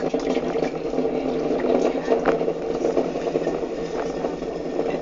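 Potter's wheel running with a steady hum while wet hands shape a clay tea bowl on it, the wet clay and slip rubbing under the fingers.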